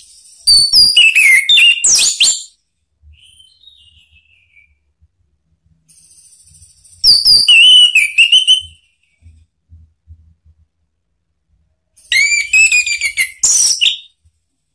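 Orange-headed thrush (anis merah) singing: three loud bursts of song about five seconds apart, each mixing high whistled notes with fast chattering, with soft falling notes between.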